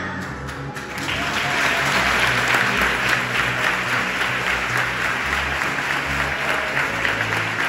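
Congregation clapping in applause, swelling about a second in and holding steady, over low instrumental music.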